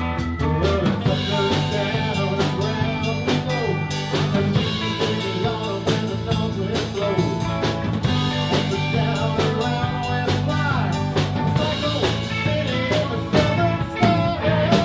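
Blues-rock band playing live, with a drum kit keeping a steady beat under sustained low notes and a lead line that bends in pitch.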